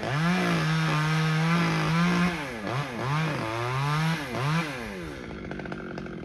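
Chainsaw engine revved to full throttle and held for about two seconds, then blipped up and down several times before dropping back toward idle.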